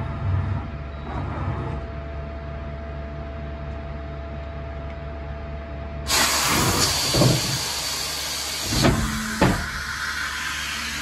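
Okuma MF-46VA machining center powered up, a steady hum with a thin whine. About six seconds in, a loud hiss starts suddenly and keeps going, with a few knocks soon after.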